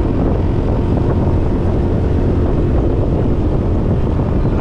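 Heavy, steady wind rumble on the microphone of a motorbike riding at speed, with the bike's engine running steadily underneath.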